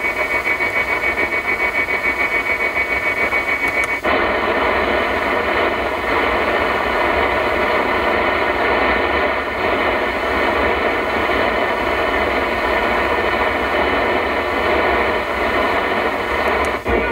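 Audi MMI Basic car radio's medium-wave (AM) receiver hissing between stations. For the first four seconds there is a rapid pulsing buzz with a steady high whistle. After a tuning step it settles into steady rushing static.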